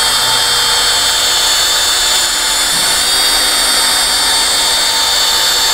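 Bosch 10.8 V cordless drill, converted into a polisher with a backing plate and foam pad, running steadily at speed setting 1 with the pad working on car paint. Its motor gives an even, high whine.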